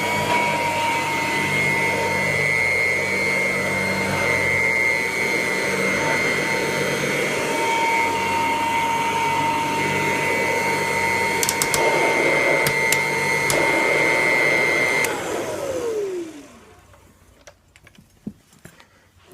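Kirby 508 upright vacuum cleaner running with a steady whine, then switched off about fifteen seconds in, its motor winding down with a falling pitch. A few light clicks and knocks follow.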